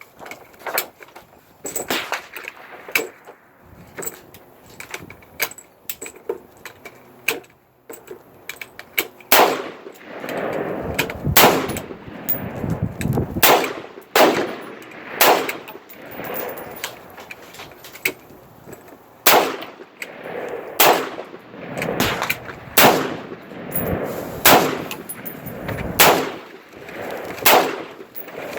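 Smith & Wesson AR-15 rifle fired in single shots. There are fainter sharp reports at first, then from about a third of the way in louder shots roughly every one to two seconds, each with an echoing tail.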